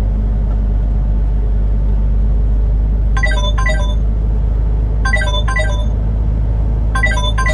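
Heavy truck driving at highway speed: a steady low rumble of engine and road noise. From about three seconds in, three short runs of high electronic notes come about two seconds apart.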